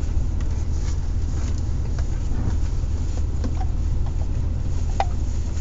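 Steady low rumble of a car engine idling, heard from inside the cabin, with a few faint clicks of chewing.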